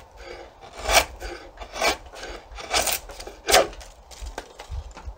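Drawknife shaving an Osage orange bow stave, cutting back to a growth ring with repeated scraping, peeling strokes, about one a second. Four strong strokes come in the first three and a half seconds, then weaker ones.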